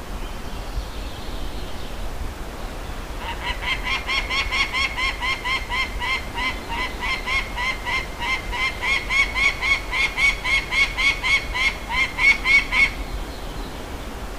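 Peregrine falcon giving a long series of repeated 'kak' calls, about three a second for nearly ten seconds, starting a few seconds in, growing louder, and stopping shortly before the end. A steady hiss of background noise lies underneath.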